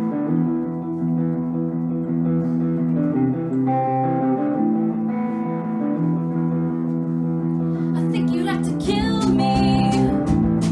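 Rock band's song intro: electric guitar chords ringing and sustaining, with cymbals and drums coming in about eight seconds in and a woman's singing starting near the end.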